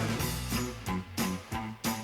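Background music: a guitar-based track with a steady beat.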